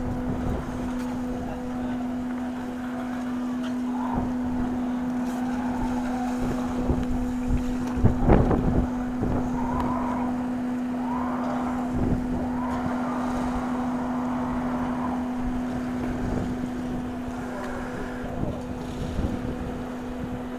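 Steady engine hum from boats in a marina lock, with wind buffeting the microphone and a brief louder burst about eight seconds in.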